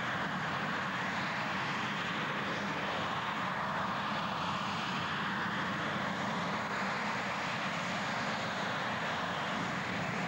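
Engine of a modified pulling tractor running at full power as it hauls the weight-transfer sled down the track: a loud, steady noise with no let-up.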